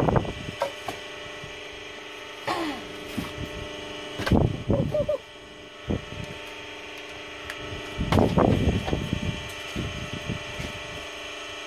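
Split firewood pieces clattering and knocking as they are thrown onto a woodpile, in several bursts of wooden knocks, over a steady motor hum.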